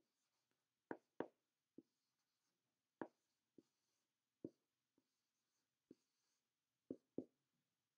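Felt-tip marker writing numbers and symbols on a hand-held white board. It is heard as about ten short, faint taps and scratches, spaced irregularly, with near silence between strokes.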